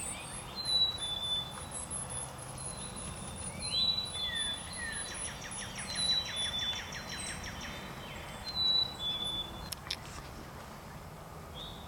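Songbirds singing: a high two-note whistle repeated four times, a fast trill of sweeping notes in the middle, and thin high chips over a steady outdoor hiss.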